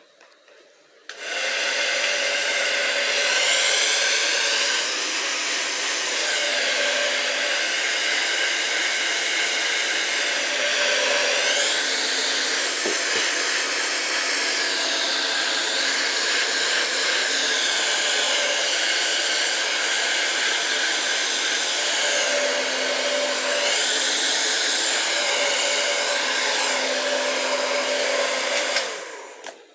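Hand-held hair dryer switched on about a second in, running steadily with a whooshing hum whose pitch wavers now and then, then switched off near the end.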